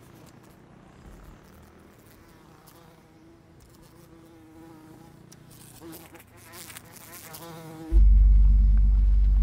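An insect buzzing faintly, its pitch wavering, in a quiet room. About eight seconds in, a loud, steady low hum cuts in suddenly.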